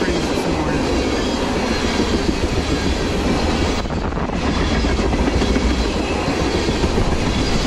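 Freight train tank cars rolling past close by: a steady, loud rumble of steel wheels on the rails, with clacking over the rail joints.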